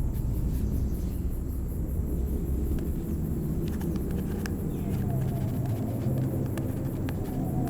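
A low, steady rumble with a few faint clicks over it.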